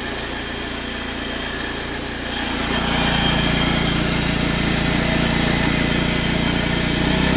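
Mini-tractor engine running steadily under way, getting louder about two and a half seconds in.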